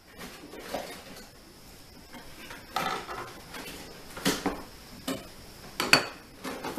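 Metal detector shaft rods and packaging being handled in an open cardboard box: rustling with about five sharp clacks as the rods knock against the box and are laid down on a table, the loudest a little before the end.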